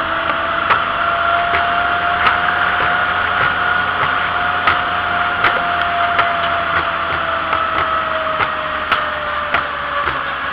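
Vintage two-cylinder John Deere tractor running at road speed, with a steady whine that rises slightly and then sags in pitch. Sharp clicks come at an even pace, a little more than once a second.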